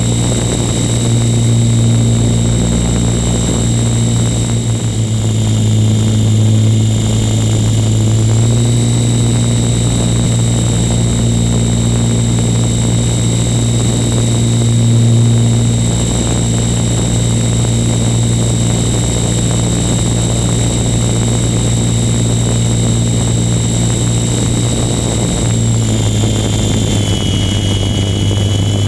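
Small aircraft's engine droning steadily, heard from on board, with a high whine over a low hum. The pitch shifts slightly about eight seconds in and settles a little lower near the end, as with small throttle changes.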